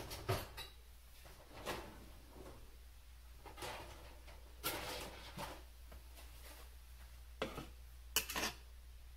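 Kitchen items handled on a counter: a string of separate knocks, clatters and clinks of dishes, utensils and containers being picked up and set down, with the loudest knocks near the start and near the end.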